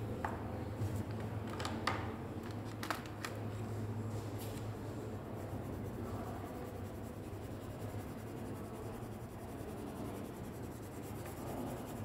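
Crayon scribbling and rubbing across a sheet of paper as a background is coloured in, with a few light clicks in the first few seconds over a steady low hum.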